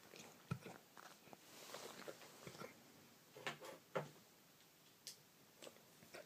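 German Shepherd dog hiccuping: several short, sharp hics at uneven intervals, the loudest about half a second in and a close pair around three and a half and four seconds in.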